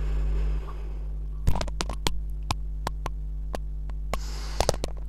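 Steady electrical mains hum under scattered sharp clicks and rubbing from a handheld earphone microphone being handled against the face, with a sniff about four seconds in.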